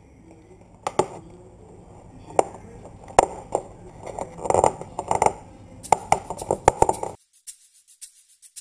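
Thin clear polycarbonate RC car body shell being handled and flexed while dried liquid mask is peeled off its inside, giving irregular sharp clicks, taps and crackles of the plastic. The sound cuts off abruptly about seven seconds in.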